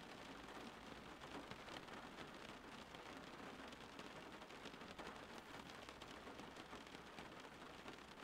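Faint, steady rain: a dense, even patter of drops.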